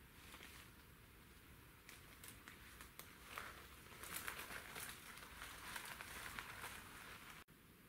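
Dry fallen leaves and twigs rustling and crackling underfoot as a person moves in the undergrowth. The rustling gets busier and louder in the second half and cuts off suddenly near the end.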